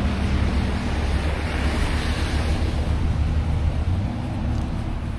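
Steady rushing noise of wind and highway traffic on slushy pavement, over a low engine hum that fades about four seconds in.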